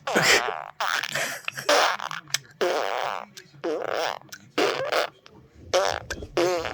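A baby's farts in a long run, about nine in a row, some short and some drawn out.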